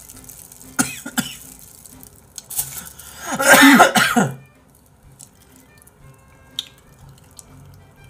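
A man coughing into his hand during a meal, one short fit about three seconds in, over faint background music. A few small clicks come before it.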